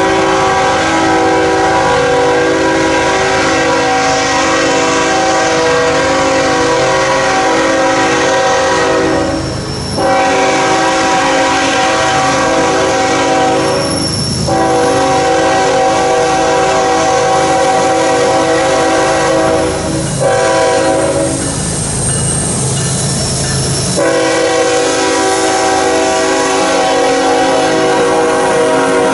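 Canadian National freight locomotive's multi-chime air horn blowing a series of long blasts, several notes sounding together as a chord, with brief breaks between them, over the low rumble of the diesel and the loaded coal hopper cars rolling past on the rails.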